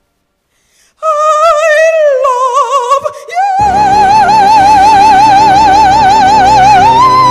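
A woman singing long held notes with wide vibrato, starting about a second in after a silence. About three and a half seconds in, keyboard accompaniment enters with a sustained chord under her, and near the end she steps up to a higher note and holds it.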